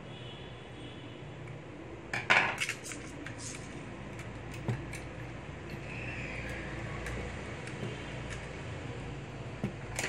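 Hard 3D-printed plastic parts and small fasteners clicking and knocking as a model tractor's lift linkage is handled. The loudest is a short cluster of knocks about two seconds in, with scattered single clicks after it, over a low steady hum.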